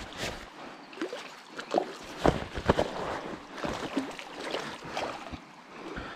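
Water splashing and sloshing close by, with irregular short knocks and rustles from handling gear; the strongest splashes come about two to three seconds in.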